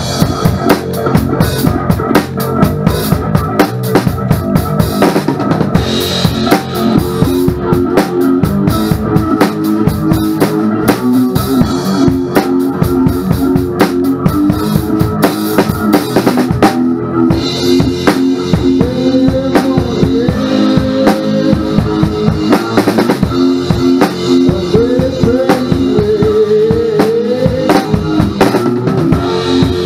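Live hardcore band playing: a drum kit hit hard and busily close to the microphone, over amplified guitar. From about halfway through, the guitar notes slide and waver in pitch.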